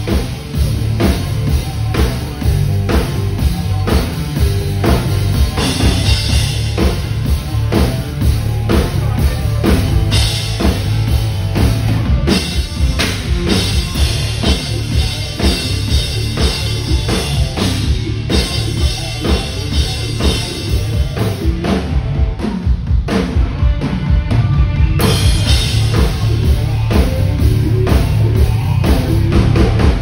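Acoustic rock drum kit played hard in a fast solo groove: a steady kick drum and quick snare and tom strokes under washes of crash and ride cymbals, with a few short breaks between fills.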